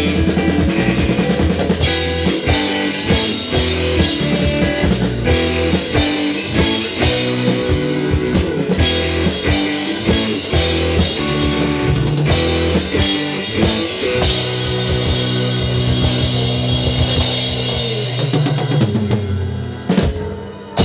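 Live rock band playing an instrumental passage with no singing: drum kit, electric guitar and bass, with held chords toward the end and a dip followed by one last loud hit near the end.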